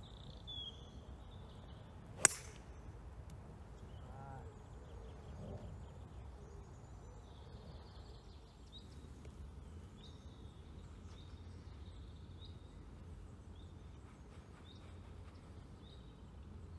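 A golf iron striking the ball off the tee: one sharp crack about two seconds in. Afterwards a bird calls with short chirps, roughly one a second, over a steady low rumble.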